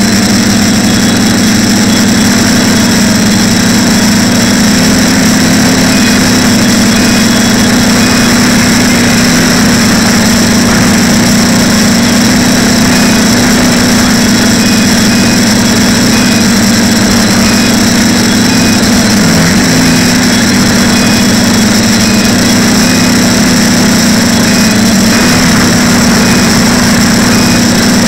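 Brushless motors and propellers of a TBS Discovery quadcopter in flight, heard from its onboard camera: a loud steady buzzing hum with a hiss of air rush. The pitch barely changes, wavering only briefly about two-thirds of the way in.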